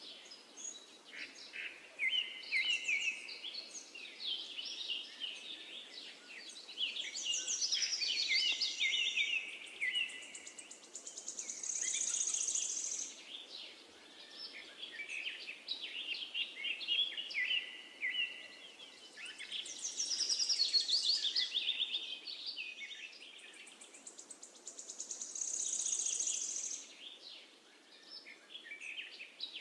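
Several birds chirping and singing in overlapping quick trills and phrases, swelling and easing off every few seconds.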